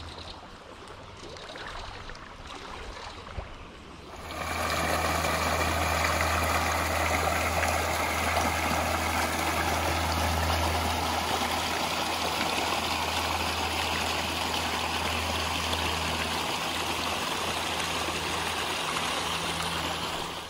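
Stream water running, soft at first. About four seconds in, a louder, steady rush of water flowing through a beaver dam takes over, then stops abruptly near the end.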